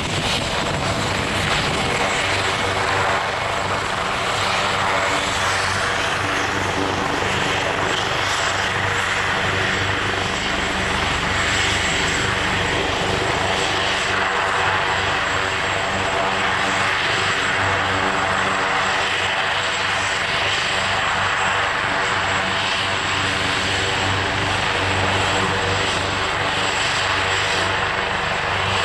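AgustaWestland AW139 twin-turbine helicopter running on the ground with its rotors turning, holding a steady high turbine whine over the beat of the rotor before lift-off.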